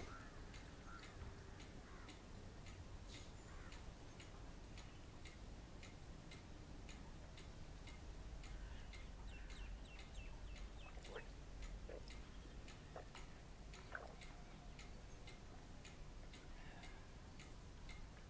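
Faint, steady ticking of a clock, about two ticks a second, over a low room hum.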